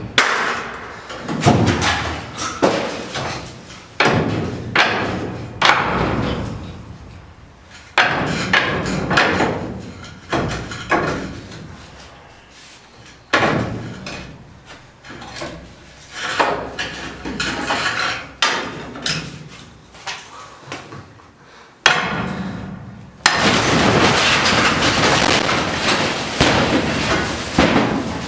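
A series of loud bangs or knocks, roughly one every second or two, each ringing out briefly. Near the end a steady rushing noise takes over.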